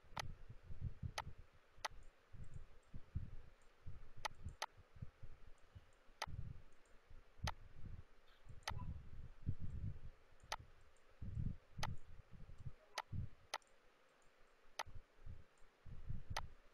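Computer mouse clicking: single sharp clicks at uneven intervals, roughly one a second, over soft low thuds and rustling.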